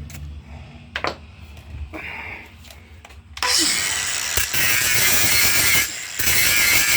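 A few light clicks of handling, then a power tool runs loudly in two bursts, the first about two and a half seconds long, the second under a second after a brief stop.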